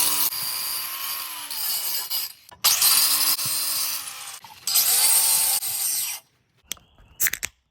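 Welding arc hissing and crackling in three bursts of about two seconds each, with short breaks between them. A faint whine rises at the start of each burst and falls at the end. A few short clicks come near the end.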